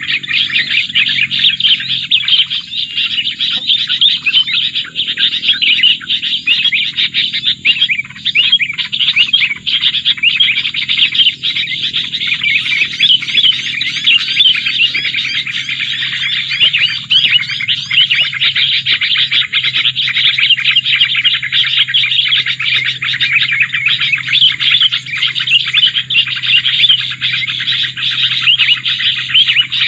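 Songbird calls used to lure birds in trapping, a dense, unbroken stream of rapid high chirps. A faint low steady hum runs underneath.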